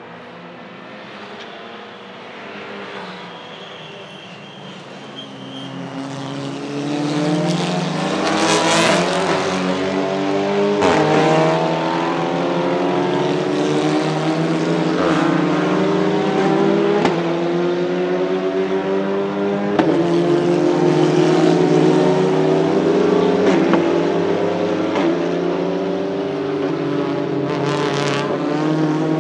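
Several Cupra Leon Competición TCR race cars with 340 hp 2.0-litre turbocharged four-cylinder TSI engines accelerate hard on track, their engine notes climbing and dropping as they shift through the sequential gearbox. The sound swells sharply about six seconds in as the cars come near, with short cracks at several of the shifts.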